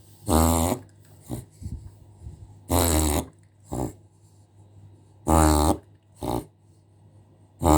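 Dog reverse sneezing: repeated harsh snorting gasps drawn in through the nose, in pairs of a longer snort and a short one, coming about every two and a half seconds.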